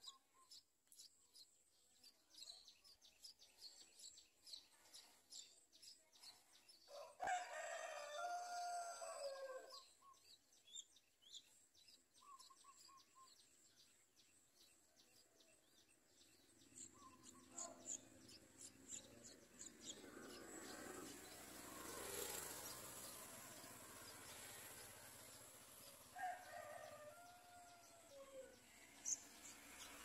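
Faint outdoor ambience in which a rooster crows twice, loudly about seven seconds in and more weakly near the end, over a string of rapid, thin, high chirps and a background rush that grows in the second half.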